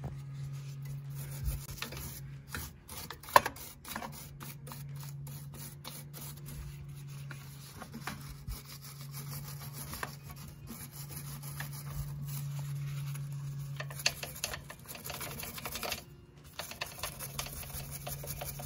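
Hand wire brush scrubbing rust off the threaded stud of a car's front sway bar end link, a fast scratchy rasping to free up the seized nut. A few sharp metal clinks come through, the loudest a little over three seconds in, and a steady low drone runs underneath.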